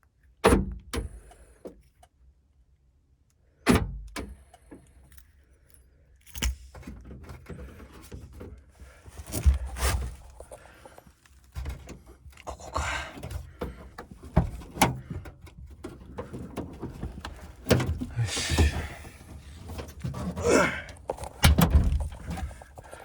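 The rear door and lock of a Mitsubishi Pajero Mini being worked by hand: irregular sharp clunks and clicks with metallic rattles and keys jangling. The rear door is stuck and will not open.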